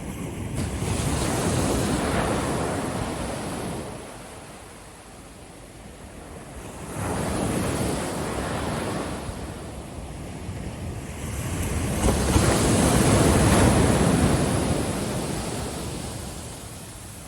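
Ocean surf breaking on a beach: three waves in turn, each swelling into a rush of water and then fading away.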